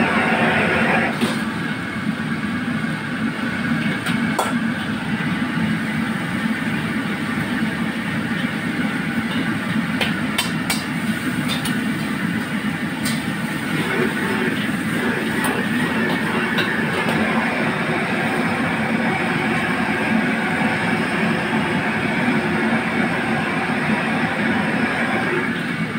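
Crabs deep-frying in a wok of bubbling oil: a steady sizzle over the rush of a commercial wok burner, with a few sharp clinks of a metal ladle against the wok.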